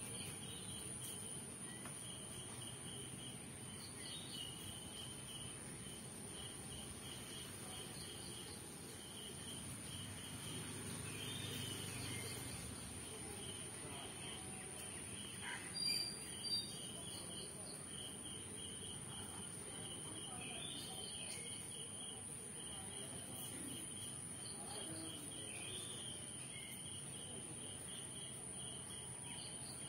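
Insects chirping in a steady rhythm over a constant high-pitched whine, with two short sharp sounds about halfway through.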